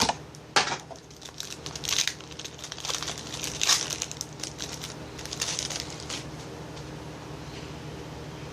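Crinkling of a foil trading-card pack wrapper being torn open and handled, in irregular bursts that die down after about six seconds, over a steady low hum.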